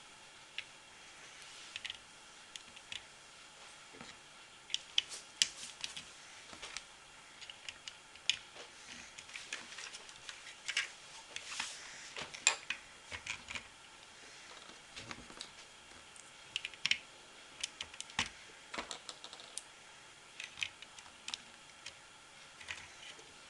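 Small plastic LEGO pieces clicking and clattering at an irregular pace as they are handled and pressed together.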